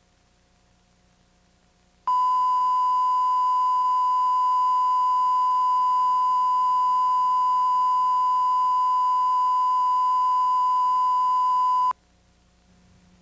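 Videotape line-up test tone played with colour bars: one steady, unchanging beep that starts abruptly about two seconds in and cuts off sharply about ten seconds later.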